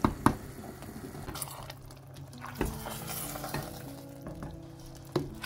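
Spoon stirring a thick spinach stew in a metal pot, scraping through it, with a few sharp knocks of the spoon against the pot, two of them close together near the start.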